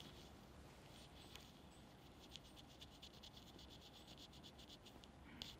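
Near silence: quiet room tone, with a faint run of quick, evenly spaced high ticks through the middle and a couple of soft clicks near the end.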